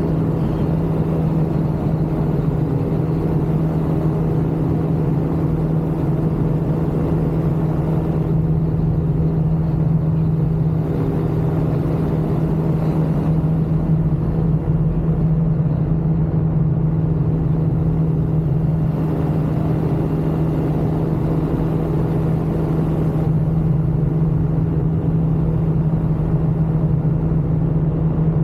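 Ultralight aircraft engine running steadily in flight: a constant droning tone that holds the same pitch and level throughout.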